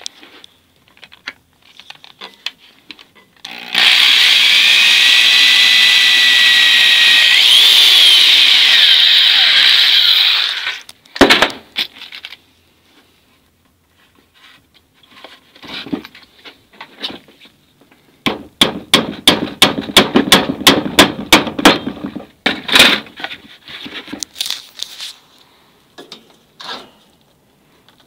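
Power drill running for about seven seconds as it bores a pilot hole through a cedar board, a steady whine whose pitch wavers near the end. A sharp knock follows, and later a quick run of about twenty light taps, roughly five a second.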